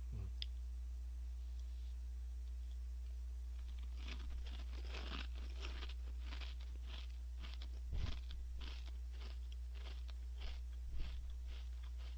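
Crisp baked snack crackers (Orion Gorae-bap) being chewed close to the microphone. After a few seconds there is a quick run of crunches, with a couple of duller thuds among them, over a steady low hum.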